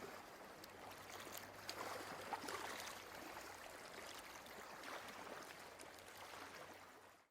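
Faint background hiss, nearly silent, with a few soft clicks.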